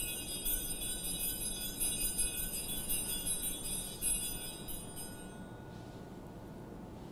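Altar bells jingling in repeated shakes, ringing out the elevation of the chalice at the consecration, then dying away about five seconds in.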